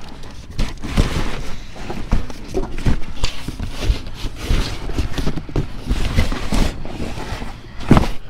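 Trash being dug through in a dumpster: irregular knocks, thuds and rustling as bags and boxes are shifted, with one louder thump near the end.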